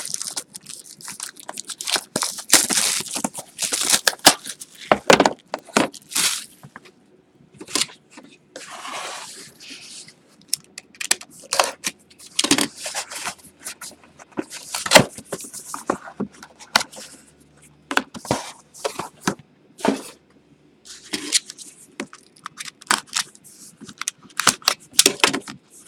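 Hands unpacking sealed cardboard trading-card boxes: plastic wrapping crinkling and tearing, with many sharp taps and clicks as the boxes are handled and set down. Near the end, scissors cut the seal on a box.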